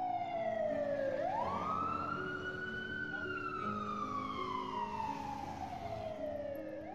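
A siren wailing. Its pitch rises quickly about a second in, falls slowly for several seconds, and starts to rise again near the end. Soft piano music plays underneath.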